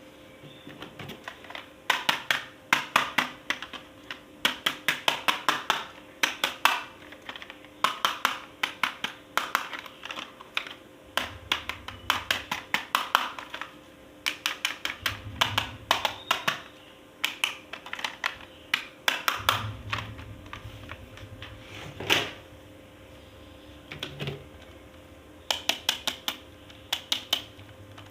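Hard plastic toy parts being handled and clicked during an unboxing: quick runs of sharp clicks and taps, several a second, broken by short pauses.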